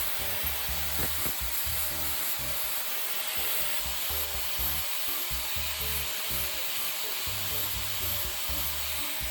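Steady abrasive rubbing, like sanding or brushing, as old hydraulic jack and press parts are cleaned, over background music with a low bass line.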